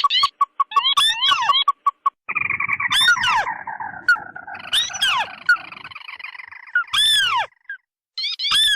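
Crake lure-call recording: loud calls made of repeated, steeply falling notes, with a dense chattering run from about two to six seconds in and sudden cuts between the spliced calls.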